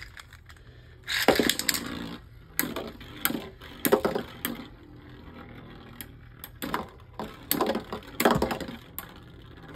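Two spinning Beyblade tops in a clear plastic stadium, colliding and skittering: a run of sharp plastic clacks at irregular intervals, a few in quick clusters. One of them is Heat Pegasus, whose unpainted plastic wheel sets it bouncing around against a metal-wheeled opponent.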